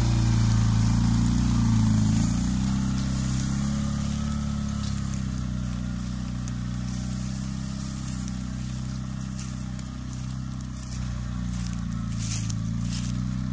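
CF-Moto Gladiator X8 ATV's V-twin engine running under load as it drags a log on a homemade log-arch skidder, fading as it drives away, with the sound picking up slightly near the end.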